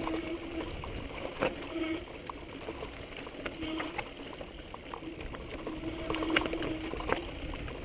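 Mountain bike rolling down a rocky dirt trail: a steady low rumble of tyres on loose ground and wind, with scattered sharp clicks and rattles as the bike runs over stones, and a buzzing tone that comes and goes.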